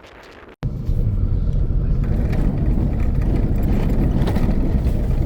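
A vehicle driving, heard as a loud, steady low rumble of engine and road noise. It starts abruptly about half a second in, replacing a quieter wind hiss.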